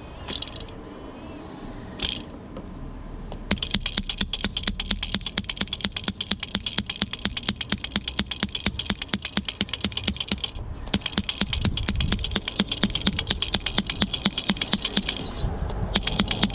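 Electric hammer attachment of a radio-controlled model excavator hammering in a rapid, even run of sharp clicks, starting about three and a half seconds in and stopping briefly twice. Before it starts there is a quieter mechanical whir and a single knock.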